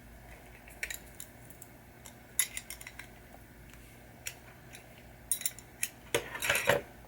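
Small metal parts and hand tools clinking and clicking in scattered sharp taps as a pinball saucer kicker assembly is put back together, with a denser clatter of metal about six seconds in.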